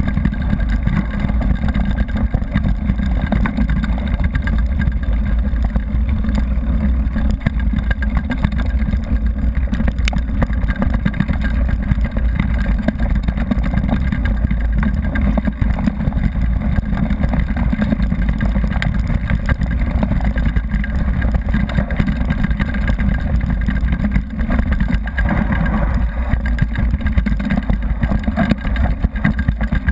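Steady, loud wind buffeting on a helmet-mounted action camera's microphone, mixed with tyres rumbling over a rough gravel forest road during a fast downhill run.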